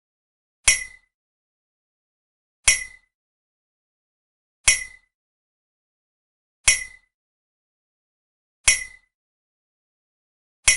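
Metal tap sound effect: a short, sharp ringing tap repeated at a steady pace, once every two seconds, six times.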